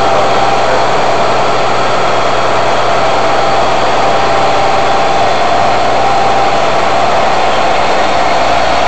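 Big rig's diesel engine running at a steady pitch, pulling an eight-axle crude oil tanker loaded to about 145,000 lb.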